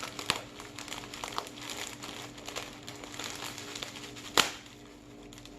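Crinkling and small crackles as colourful foam beads are poured out over putty, with one sharp click near the end.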